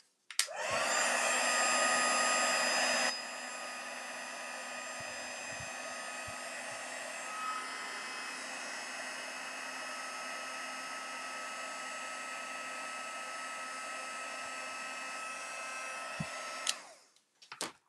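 Electric heat gun blowing hot air to melt embossing powder: a steady fan rush with a motor whine. It switches on just after the start, is loudest for about the first three seconds, then runs quieter and steady until it switches off near the end.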